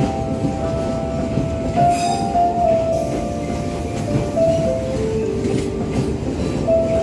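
Passenger train coaches rolling slowly past along a platform: steady rumble and clatter of steel wheels on the rails. Held tones that step up and down in pitch sound over it.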